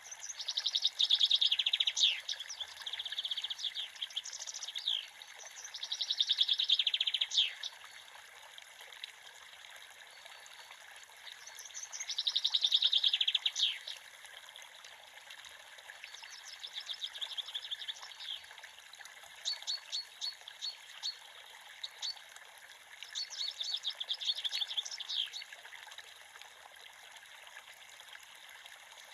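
Creek water flowing steadily, with a small songbird singing over it in repeated bouts of fast, high trills, about seven phrases a few seconds apart.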